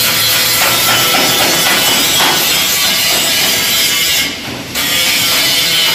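Angle grinder grinding steel car body panels, a loud steady grinding noise that breaks off briefly a little past four seconds in and then resumes.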